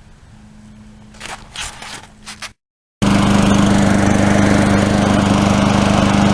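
A few brief clicks and rattles, then after a short break a Lawnboy mower's Tecumseh engine running loud and steady at a constant speed.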